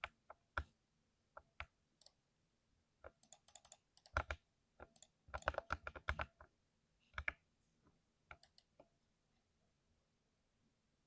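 Keys of a mechanical keyboard being typed: scattered single keystroke clicks, a quick run of keystrokes around the middle, then a few last presses that stop about nine seconds in.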